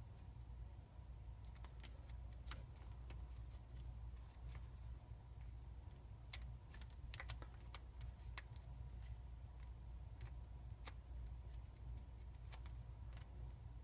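Small sheet of origami paper being folded and creased by hand: scattered faint crinkles and crisp paper clicks, busiest about six to eight seconds in, over a steady low hum.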